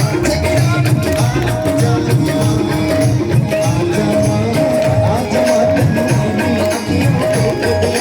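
Live Indian devotional bhajan music in an instrumental passage: hand-drum and rattle percussion under a high melodic note that keeps breaking off and coming back.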